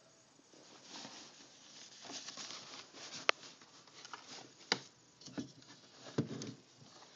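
Siamese kitten scrabbling and squirming in the tight gap under a printer stand: irregular rustling and scraping with several sharp taps, the loudest about three seconds in.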